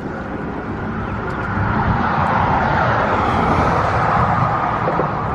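Car tyre and road noise from traffic passing on the bridge road, swelling over the first two seconds, loudest through the middle and easing off near the end, over a steady low rumble.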